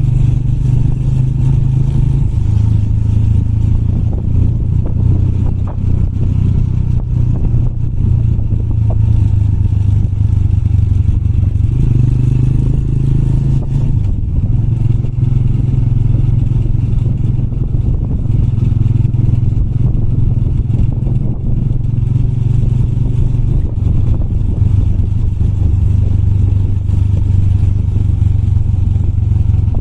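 Motorbike engine running at low, steady revs on a rough trail, its note stepping up and down a few times as the throttle changes, with a light clatter of the bike over loose ground.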